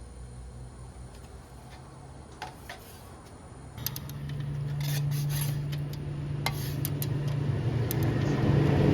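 A steady low mechanical hum that starts about four seconds in and grows gradually louder, with scattered light clicks and clatter over it.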